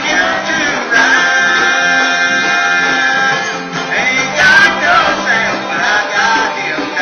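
Live country string band playing, with banjo, guitar, mandolin and upright bass under a sung vocal line; a long note is held from about a second in until past the midpoint.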